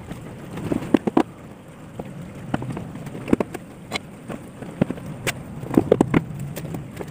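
Irregular clicks and knocks of hands working at the plastic underside of a car's front bumper, handling its screws and clips.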